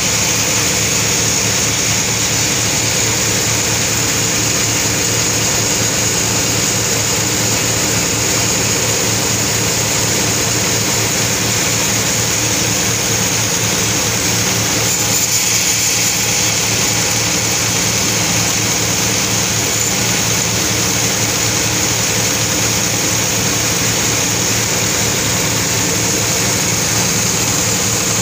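Sawmill machinery running steadily: a continuous engine or motor drone with a high whine above it.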